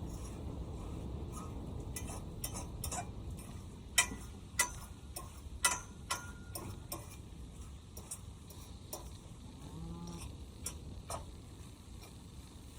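Scattered light clicks and taps of cooking gear being handled at a camp stove, three sharper ones about four to six seconds in, over a low steady rumble. Near ten seconds a brief, faint low call rises and falls.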